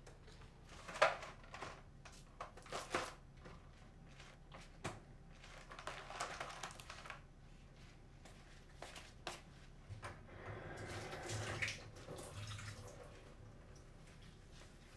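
Faint kitchen sounds: scattered light clinks and knocks of cups and dishes on a counter, then water running or pouring for about two to three seconds, starting about ten seconds in.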